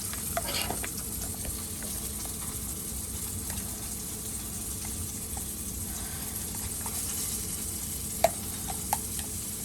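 Food sizzling steadily in a hot frying pan, with two sharp clicks near the end.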